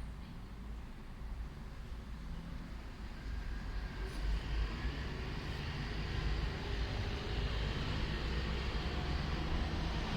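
City street traffic: a steady rumble of engines and tyre noise, growing louder from about four seconds in as vehicles pass.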